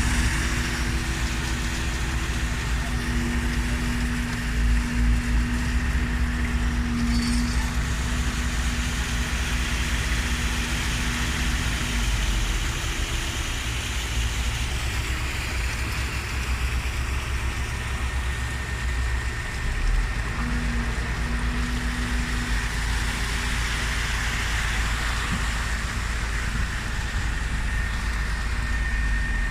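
Mercedes-Benz Arocs concrete mixer truck's diesel engine running steadily, with a low humming tone that comes and goes twice.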